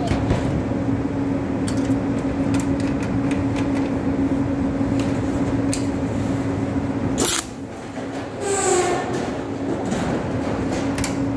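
Steady mechanical hum from the stud welding equipment on a steel deck, with scattered light clicks. A sharp crack sounds a little past halfway, after which the hum drops away for a moment and comes back weaker.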